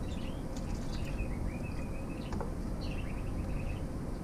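Wooden spoon stirring soup in a stainless steel pot, over a steady low hum. Two faint, wavering high chirps are heard around the middle.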